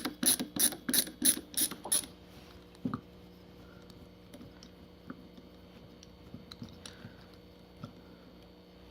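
Kobalt ratchet screwdriver clicking in steady strokes, about three a second, as it backs a screw out of an engine part; the ratcheting stops about two seconds in, followed by one more click and faint handling ticks. The reviewer believes its ratchet gearing is metal.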